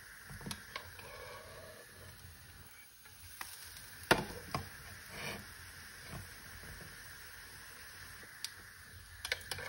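American pancake frying in hot oil in a non-stick frying pan, a faint steady sizzle, with a spatula scraping and clicking against the pan as the pancake is turned over. A sharp knock about four seconds in is the loudest sound.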